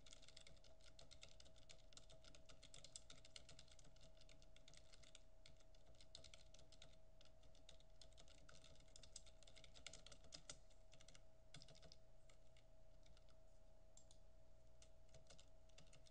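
Computer keyboard typing in quick runs of keystrokes, thinning out after about ten seconds, over a faint steady hum.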